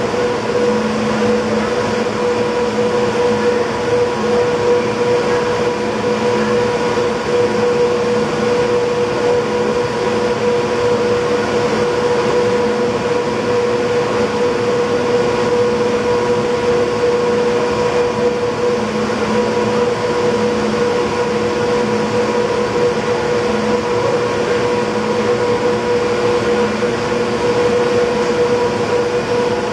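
Cable car power house drive machinery running: electric drive motors, gearboxes and cable winding sheaves give a constant mechanical hum with a clear steady tone, under a lower drone that swells and fades.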